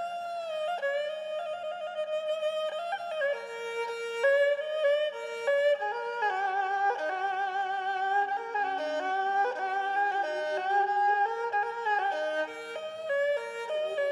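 Tro Khmer, the Cambodian three-string spike fiddle, bowing a melody with sliding notes and vibrato.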